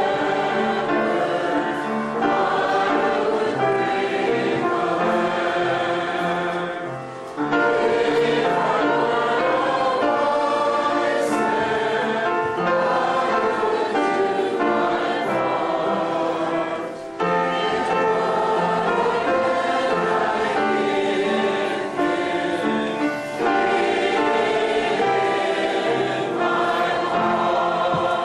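Choir singing a sacred piece in several voice parts, with short breaks between phrases and fading out near the end.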